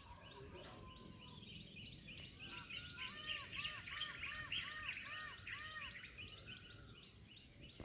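Several small birds chirping and calling, with one bird repeating a short arched note about seven times in a row near the middle, over faint outdoor background noise and a steady high insect-like whine.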